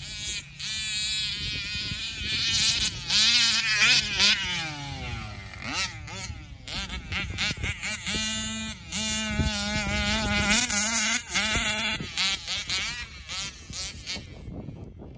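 Large-scale RC car's small two-stroke gas engine buzzing as it is driven, revving up and down again and again with its pitch rising and falling.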